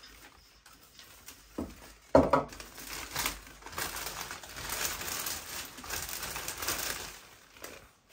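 Plastic vacuum-bagging film crinkling and rustling as it is pressed and smoothed by hand over a mould. There is one sharp, loud crackle about two seconds in, then dense rustling from about three seconds on that fades just before the end.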